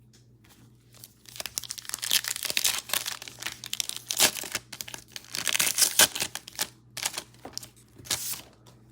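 Plastic wrapper of a Mosaic football card pack being torn open and crinkled, starting about a second in, as a run of irregular crackling rustles.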